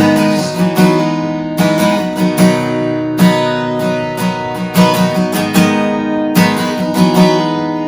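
Strummed acoustic guitar in a worship band, playing a rhythmic instrumental passage between sung lines, with sustained chords held underneath.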